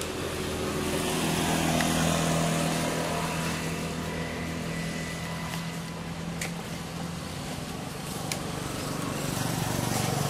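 An engine running steadily with a low hum, swelling louder about two seconds in and again near the end, with a few sharp clicks.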